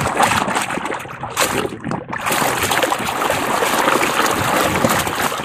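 Muddy water splashing and sloshing as a plastic toy fire truck is swished through it by hand to wash off the mud, with a short lull about two seconds in.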